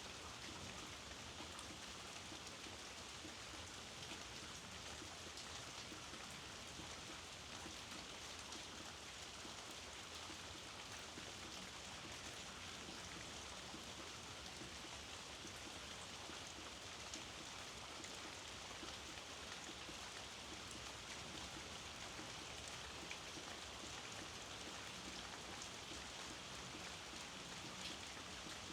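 Steady rainfall, an even hiss with scattered faint drop ticks and no change in intensity.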